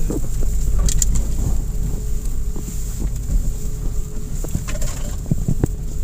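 Cabin noise of an off-road car driving a rough dirt track: steady engine and tyre rumble, with knocks and rattles about a second in and again near the end as it jolts over bumps.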